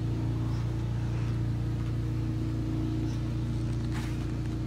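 Domestic cat purring steadily while being stroked: an even, low, fluttering hum.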